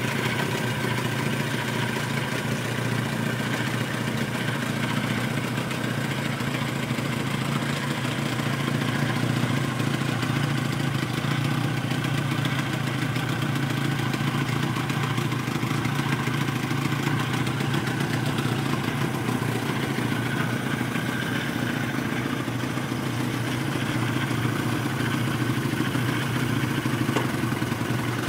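Parsun 25 two-stroke twin outboard motor idling steadily at low revs, its lower unit submerged in a test tank. It is being run in on a 1:25 oil-fuel mix.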